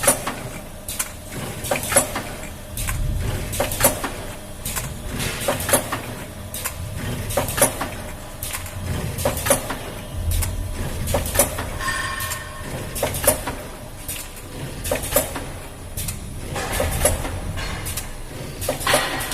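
Coffee capsule filling and sealing machine running, with a low motor hum under rapid mechanical clicks and knocks as its parts cycle. A short two-tone beep sounds about twelve seconds in.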